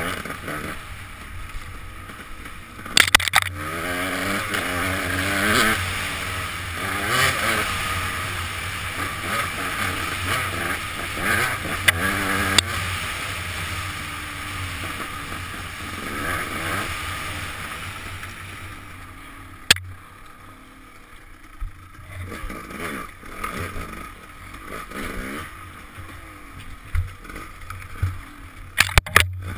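Dirt bike engine revving up and down as it rides a snowy trail, heard from a helmet camera, with sharp knocks a few times from the bumps. The engine eases off about twenty seconds in, then picks up again.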